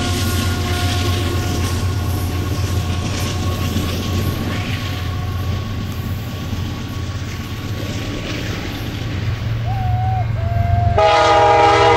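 Steady low rumble of a freight train with a few faint steady ringing tones. About eleven seconds in, a diesel locomotive's multi-chime air horn sounds a loud chord that carries on past the end.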